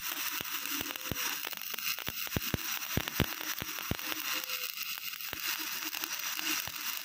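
Stick-welding arc from an E6013 rod burning on carbon-steel pipe. It makes a steady crackling hiss, broken by frequent irregular sharp pops.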